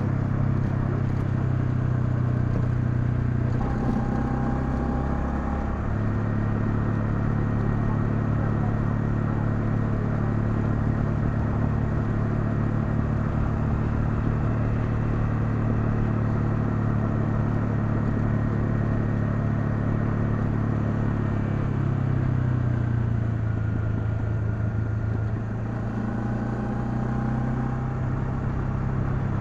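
Honda CL250's single-cylinder engine running steadily while the motorcycle is ridden. The engine note changes pitch about four seconds in and again some seconds before the end, as the throttle or gear changes.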